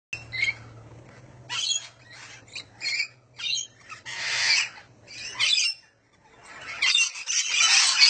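Parrots calling: a string of separate short squawks and chirps, then a denser, louder chorus of many overlapping calls building up from about six and a half seconds in.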